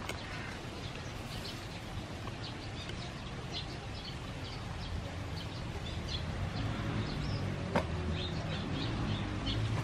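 Small birds chirping repeatedly over a steady hiss of outdoor noise, with a low rumble growing in the second half and a single sharp click near the end.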